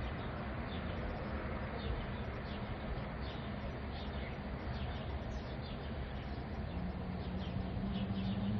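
Wind and rain sound effect: a steady rush of rain and wind, dotted with many short, high, falling chirps, and a low moaning wind gust that rises in pitch near the end.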